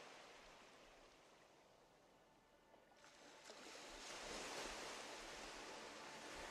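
Faint sea surf: a wash of waves that dies away, then swells again about four seconds in.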